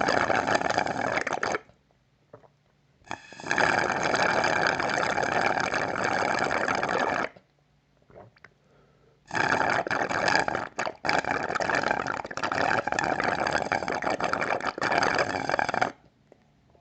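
Slurping through a drinking straw: a gurgling, crackling draw of air and liquid, in three long pulls with short pauses between them. The first pull ends about a second and a half in, the second lasts about four seconds and the third about six and a half.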